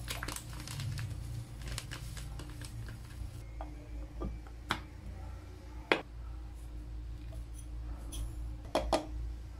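Chia seeds poured from a plastic packet into a glass jar, a dense pattering rattle that stops after about three and a half seconds. A few sharp clicks follow as the bamboo lid goes on the jar. Near the end, white granules are poured into a second glass jar.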